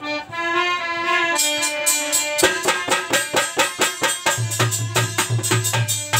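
A harmonium plays a rasiya folk introduction; about a second and a half in a chimta (jingling fire tongs) comes in with rapid rhythmic clashes, and a second later a dholak joins with hand strokes, adding deep bass strokes from about four seconds in.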